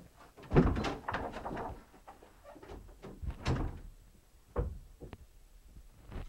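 Door and handling knocks: a loud bang about half a second in, followed by rustling and a series of lighter knocks, with a sharp click about three and a half seconds in and another knock a second later.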